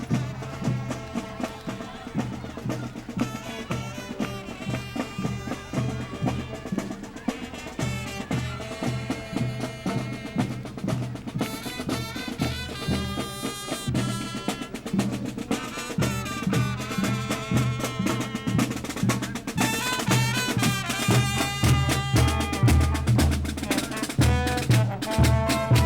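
Marching band playing in a parade: a steady drum beat under a melody, growing louder near the end.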